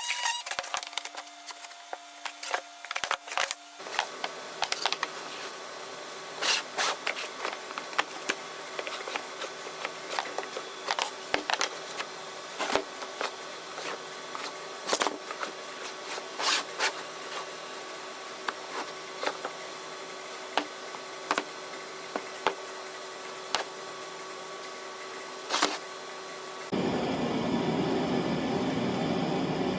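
Wooden workpieces being handled in the shop: scattered sharp wooden knocks and clicks over a faint steady hum. Near the end a loud, steady rushing noise starts abruptly.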